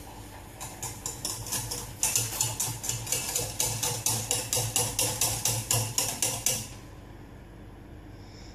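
Wire whisk beating fast in a metal saucepan, clicking against the pan about five or six times a second, then stopping near the end. Beaten egg yolk is being whisked into the hot custard base quickly so that it doesn't scramble.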